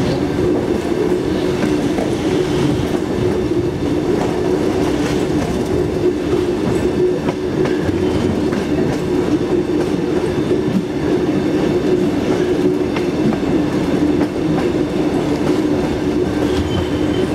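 Passenger train running on the rails as it climbs a mountain grade, heard from an open carriage window: a steady loud rumble of wheels on track with a constant low hum.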